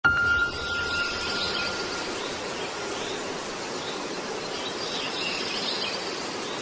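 Steady background hiss with faint bird chirps; a thin steady tone sounds over it for the first two seconds.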